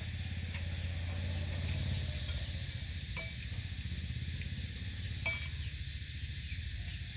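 A metal spoon clinking a few times against a ceramic rice bowl, two of the strokes ringing briefly, over a steady low hum.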